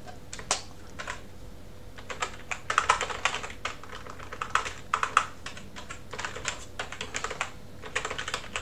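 Typing on a computer keyboard: bursts of quick keystrokes separated by short pauses.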